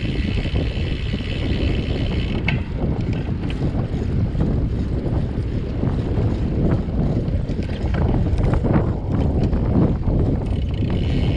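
Wind buffeting the microphone of a camera riding on a moving road bike: a loud, steady low rumble. A high steady whine drops out about two and a half seconds in and returns near the end, and scattered short clicks and knocks come from about six seconds on.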